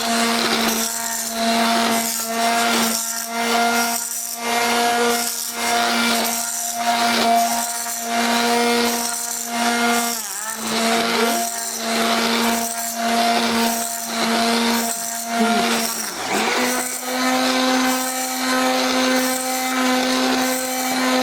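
Electric kitchen mixer running steadily in a bowl of batter, its motor whine pulsing in a regular rhythm as the beaters are worked around. The motor dips briefly about ten seconds in, then runs again at a slightly higher pitch from about sixteen seconds in.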